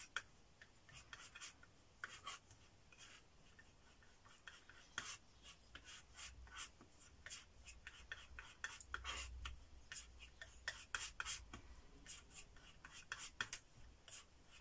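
Metal palette knife scraping and pushing acrylic paint back and forth across a flat palette, mixing blue into white: faint, irregular scratchy strokes.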